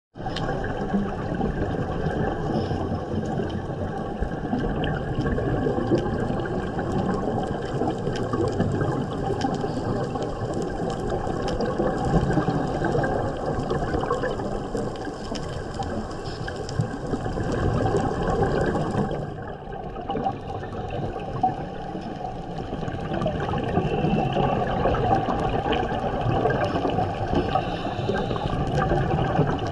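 Underwater ambient noise picked up by a camera in its underwater housing: a steady watery rush sprinkled with fine crackling, dipping briefly about two-thirds of the way through.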